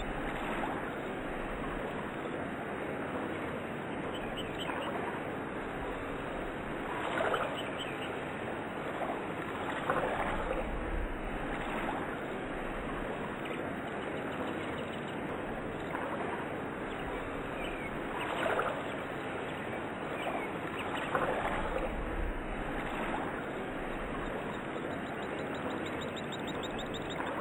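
A spoken affirmation sped up and repeated in many overlapping layers, heard as a steady dense wash with short high chirp-like glides scattered through it and a few louder blips.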